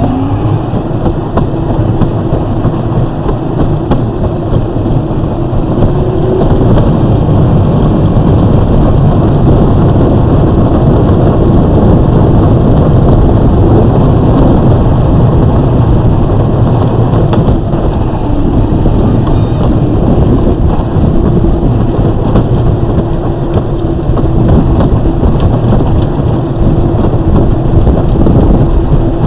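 Battery-powered Power Wheels ride-on toy car driving on pavement, heard up close from its body: a loud, steady rattle and rumble of its plastic wheels and body, with a steady hum from its electric drive.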